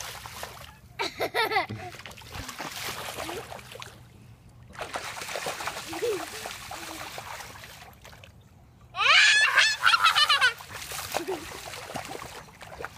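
A child's bare feet splashing and stomping through a shallow rainwater puddle on pavement, the splashes coming in uneven runs. High-pitched squeals break in about a second in and again, loudest, around nine seconds in.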